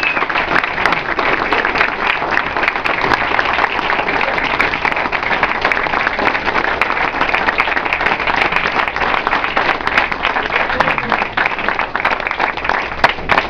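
A roomful of people applauding: dense, steady clapping from many hands at the close of a speech.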